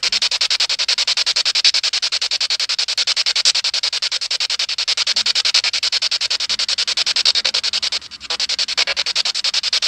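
Ghost-hunting spirit box sweeping the radio band: loud static chopped into rapid, even pulses many times a second, with a brief break about eight seconds in.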